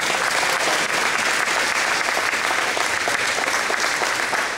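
Audience applause in a large hall: a crowd clapping steadily for an award recipient.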